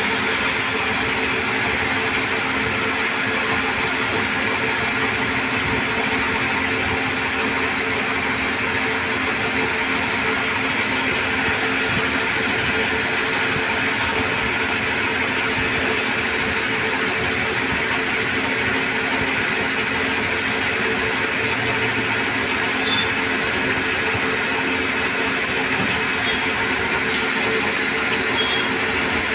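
CNC lathe running steadily during a shaft-turning job, a constant machine hum with even noise over it.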